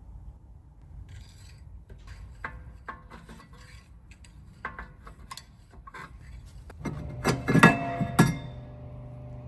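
Metal clicking and scraping at the rear brake as the brake shoes are backed off. Then a cast-iron brake disc clanks loudly several times as it comes off the hub, and it keeps ringing after the last clank.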